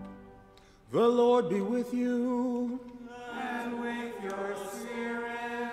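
Unaccompanied liturgical chant opening the Gospel reading. About a second in, a voice sings a short phrase on a nearly level held note. A softer sung phrase answers it.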